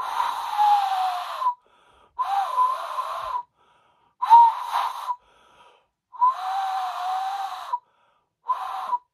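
Glass bottle partly filled with water, blown across its mouth five times, each blow a breathy tone whose pitch wavers a little. The water leaves only a small air space, so the bottle sounds as a Helmholtz resonator with little air to resonate.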